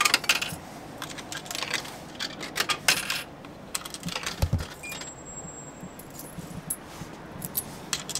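Coins clinking and jingling in a hand as they are picked out and dropped one by one into a vending machine's coin slot, a scatter of short metallic clicks.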